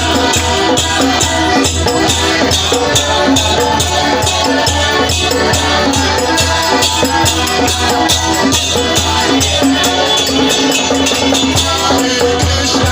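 Devotional kirtan music: a fast, steady beat of jingling hand percussion over a drum and a steady low drone.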